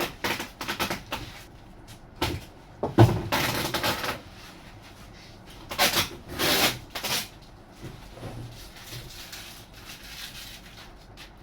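Packaging being handled and pulled open: irregular rustling and scraping with a few knocks, loudest about three seconds in and again around six to seven seconds, then quieter handling.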